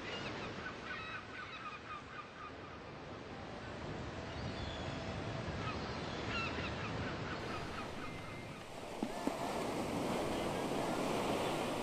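Ocean waves and surf washing steadily, with short bird calls over them in the first half; the wash grows louder in the second half.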